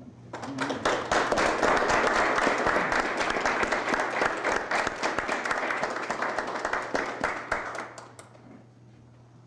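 A crowd applauding: many hands clapping for about eight seconds, then dying away.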